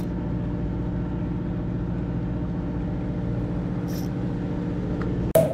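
A boat's engine running steadily, a low droning hum. About five seconds in there is one sharp knock.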